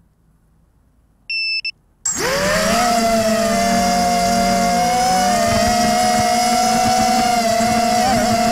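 Two short high beeps, then about two seconds in an FPV racing quadcopter's brushless motors and propellers spin up and run with a loud, steady whine as it takes off and flies.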